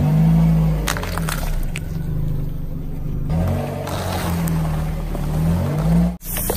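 Background music with a repeating low bass line, with a few sharp cracks and crunches as a car tyre slowly rolls over small oranges and then a row of sandwich biscuits. The music cuts out briefly near the end.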